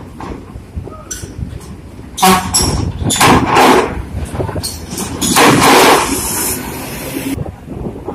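Heavy vehicle noise during ferry loading, with several loud noisy surges and a high hiss that cuts off suddenly near the end.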